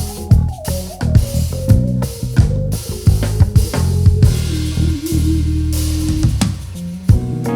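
Live band playing an instrumental jam: drum kit hits over a bass line, with guitar and keys holding notes on top.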